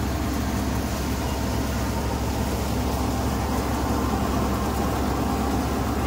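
Engine-driven paddy thresher running steadily at working speed, threshing rice: a continuous machine drone.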